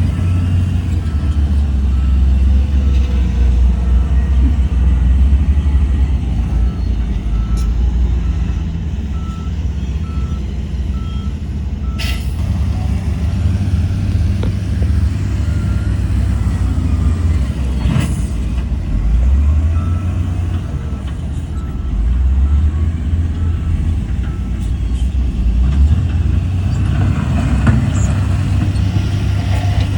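Heavy earthmoving machinery's diesel engine working under rising and falling load, with a reversing alarm beeping regularly through the first part and again briefly later. Two sharp clanks stand out partway through.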